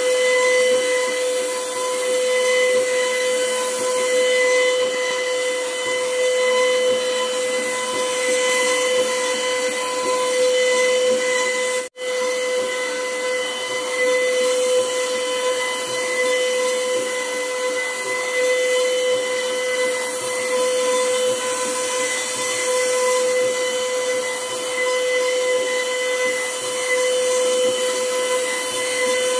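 CNC router spindle running with a steady high whine as its bit carves a pyramid pattern into a solid wood panel, with a hiss above the whine. The sound cuts out for an instant about twelve seconds in.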